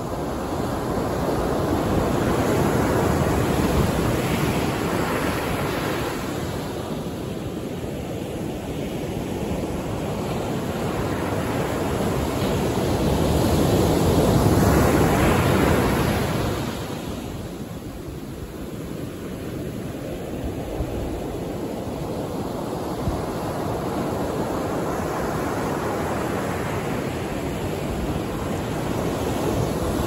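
Ocean surf breaking and washing up a sandy beach: a continuous rush of water that swells as each wave comes in. It is loudest about halfway through, then falls away suddenly and slowly builds again.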